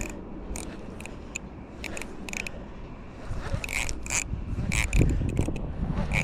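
Fishing reel clicking in short irregular bursts as a hooked cod is played. A low rumble of handling noise grows louder through the second half.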